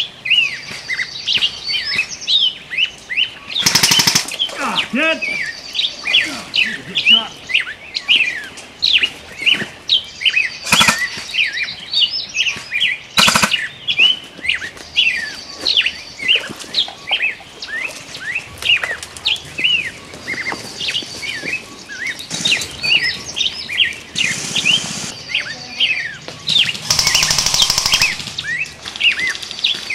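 Wild birds chirping steadily, many short calls overlapping. A few sudden bursts of noise cut across them: short ones at about 4, 11 and 13 seconds, and a longer rattling one near the end.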